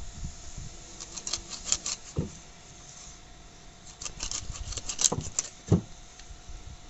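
A bony fish being cut into steaks on a boti, a curved floor-mounted cutting blade: two bouts of crunching clicks as the blade goes through skin and bone, each ending in a dull thump.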